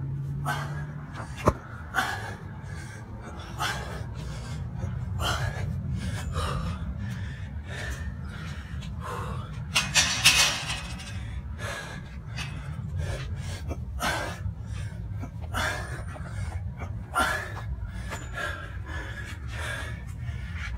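A man breathing hard after intense exercise, a forced gasping breath roughly once a second, one louder and longer about halfway through. A steady low rumble runs underneath.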